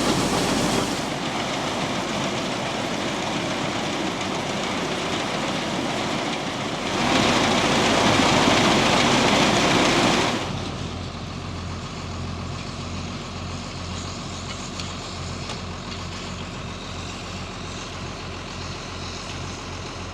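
Truck engine and grain-unloading machinery running steadily, with abrupt changes in loudness a few times. In the second half the noise drops to a low engine idle that pulses evenly.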